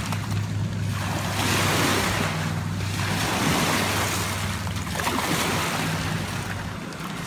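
Small lake waves washing up over gravel and rocks at the water's edge, surging in and falling back about every two seconds.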